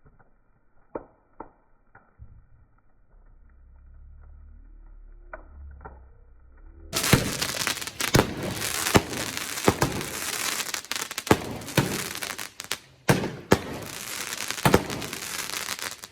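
Quiet with a few faint clicks, then about seven seconds in a dense crackle of burning wood starts suddenly, with many sharp cracks and pops from fireworks packed into the bonfire.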